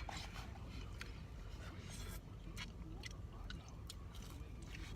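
A person chewing a mouthful of fried chicken sandwich close to the microphone, with scattered small clicks of the mouth and food.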